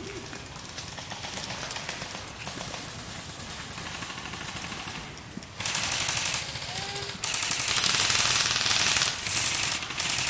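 Airsoft gun firing on full auto, a fast rattle of shots in long bursts that start loud about five and a half seconds in and run on with short breaks, over quieter scattered fire before.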